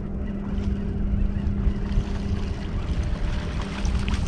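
Wind on the microphone and choppy water against a small aluminum boat's hull, under a steady motor hum. Near the end a hooked catfish splashes at the surface.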